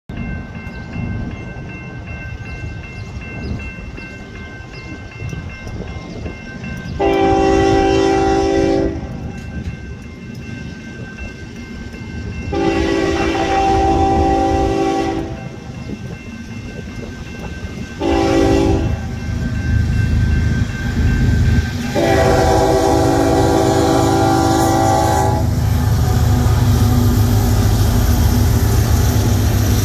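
Union Pacific freight train's diesel locomotive horn sounding the grade-crossing signal: two long blasts, one short and one long, over the steady ringing of the crossing signal bell. Near the end the locomotives pass with a loud low rumble and a steady engine drone.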